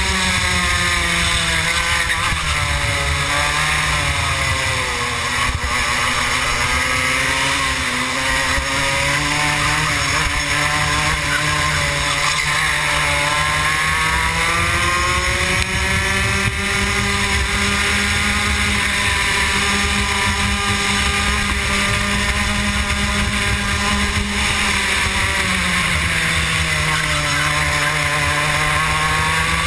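Rotax Max 125 cc two-stroke kart engine at full race pace, heard from on board the kart. Its pitch drops while braking into corners about five seconds in and again near the end, and stays high and steady along a straight in between.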